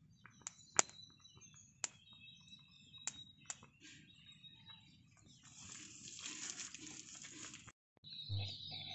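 Faint outdoor ambience: birds chirping with thin high calls, and a few sharp cracks from the small wood fire under the clay pot. In the second half comes about two seconds of hiss.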